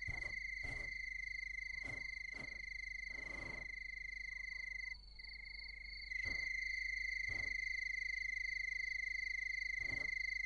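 A steady, high-pitched trill of a night-calling animal, with a fainter, higher tone above it. It breaks off briefly about halfway through, then resumes. Faint soft ticks sound now and then.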